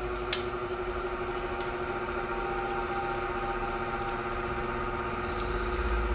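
Woodward Fab Super Bead bead roller's electric power unit running steadily, driving the dies as sheet steel is fed through to roll a bead. A steady motor hum, with one sharp click shortly after the start.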